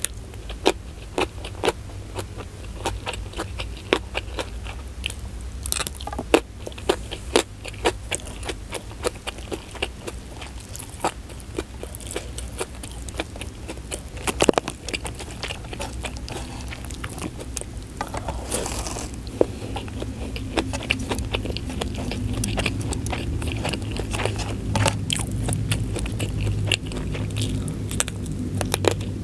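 Close-miked eating with the mouth: chewing and crunching rice, omelette with sambal matah, and raw leunca berries, with many small sharp crunches and wet mouth clicks all through.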